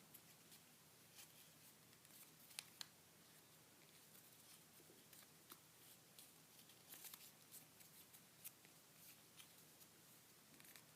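Faint paper handling against quiet room tone: a sheet of origami paper being folded, with a few soft crinkles and creasing clicks scattered through.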